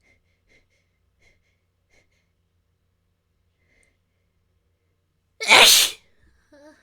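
A single loud, explosive human sneeze about five and a half seconds in, set off by dust tickling the nose. A few faint small clicks come before it, and a brief faint voiced sound follows right after.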